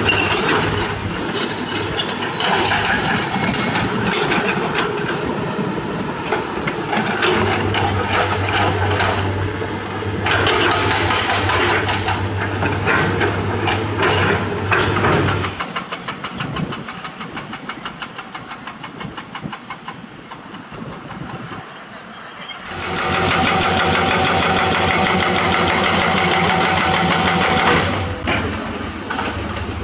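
An engine running loud with a steady low hum, dropping to a quieter, rapid, even ticking for several seconds in the middle, then running loud again.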